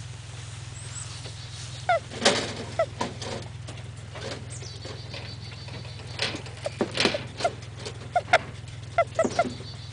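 English Angora rabbit doe squeaking in short, high chirps: a few about two seconds in, then a run of them from about six seconds on. The squeaking is taken to be a sign that she is probably in season for the first time.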